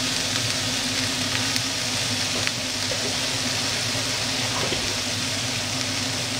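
Minced meat sizzling steadily in oil in a frying pan, over a constant low hum.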